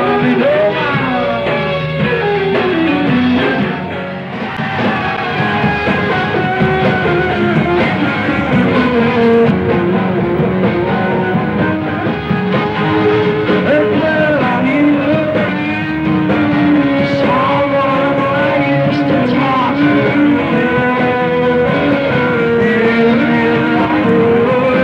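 Rock band playing live, with singing over guitar and the rest of the band.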